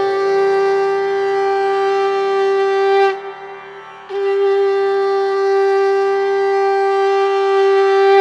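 Conch shell (shankha) trumpet blown in long, steady, single-pitched blasts: one blast ends about three seconds in, and after about a second's pause a second long blast is held to the end.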